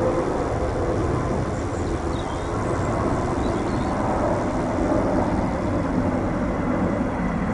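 Electric motor and propeller of a radio-controlled FunCub floatplane running steadily as it taxis across the water, over a steady low rumble.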